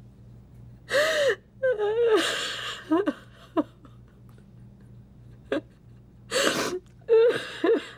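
A woman sobbing: sharp gasping breaths about a second in and again near the end, with short broken crying sounds between them.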